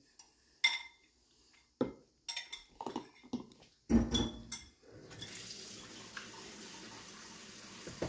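Clicks and knocks of a plastic blender cup and lid being handled, with a louder thump about four seconds in, then a faint steady hiss.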